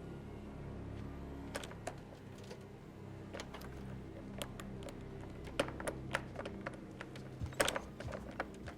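Irregular light clicks and taps, some sharper than others, over a low steady hum that fades after the first second or so.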